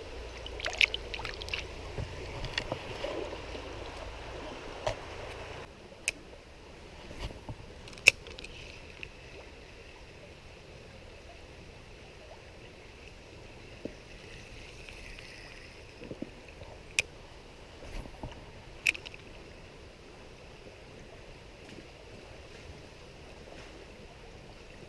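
A shallow rocky stream flowing, a steady rush of water that drops quieter about six seconds in. A few sharp clicks and knocks stand out now and then.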